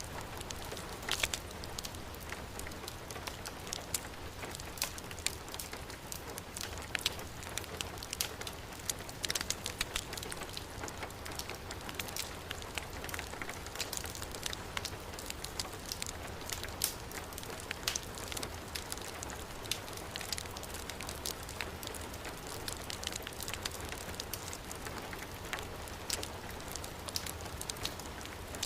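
Heavy rain falling steadily, mixed with a wood fire crackling and giving frequent sharp pops.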